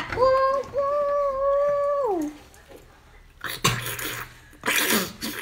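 A woman's long, high, held vocal hum of about two seconds that slides down in pitch at the end, then two short slurping noises as she sucks on the geoduck siphon.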